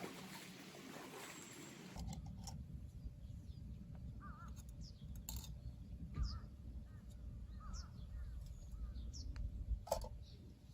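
Running stream water for about two seconds, then an abrupt change to birds calling repeatedly over a low rumble.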